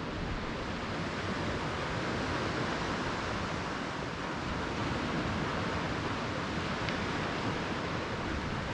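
Low surf breaking and washing up a sandy beach: a steady rushing hiss that swells gently now and then.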